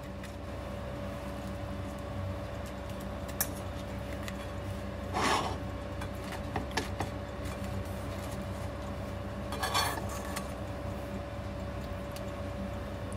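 Raw seafood and shells being placed into a stainless steel pot of cabbage: a few light clicks and two short rustling scrapes, about five and ten seconds in, over a steady hum.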